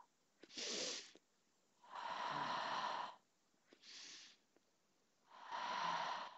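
A woman breathing audibly in time with a Pilates heel-raise exercise, four breaths in all. Short, sharp breaths about half a second in and about four seconds in alternate with longer breaths out just after two seconds and near the end, with near silence between them.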